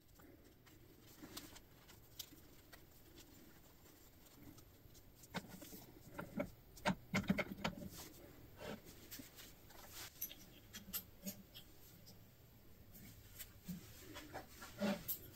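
Scattered light clicks, knocks and cloth rustles of a wooden workpiece, wrapped in a towel, being handled and clamped in a steel machine vise on a drill press. The knocks come in a cluster about halfway through and again near the end.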